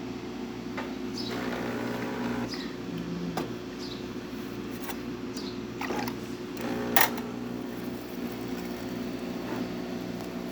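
DeLonghi Magnifica super-automatic espresso machine working through a shot: a steady mechanical hum with scattered clicks and knocks, the loudest about seven seconds in.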